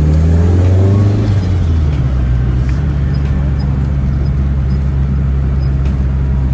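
Turbocharged pickup truck engine running while driving. It is loudest in the first second or so, then its note drops and it settles into a steady low drone.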